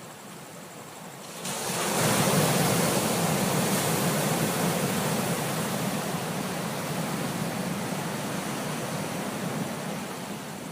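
Ocean wave breaking about a second and a half in, followed by a long hiss of surf washing in that slowly fades.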